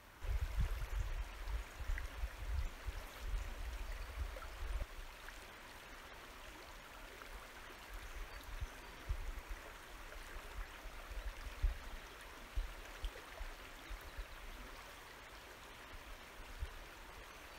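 River water flowing steadily, an even soft rush. Irregular low rumbling comes and goes through the first five seconds and again from about eight to twelve seconds in.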